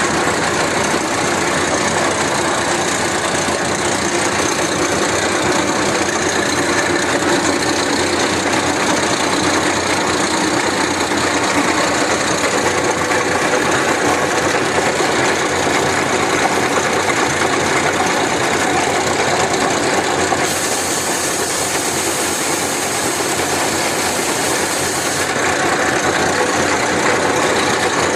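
Steady running noise of heavy industrial machinery, a dense mechanical drone with a faint steady hum in it. A brighter hiss joins for about five seconds near the three-quarter mark.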